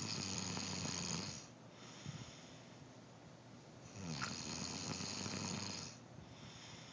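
A man snoring in his sleep: two long snores about four seconds apart, with quieter breathing between them.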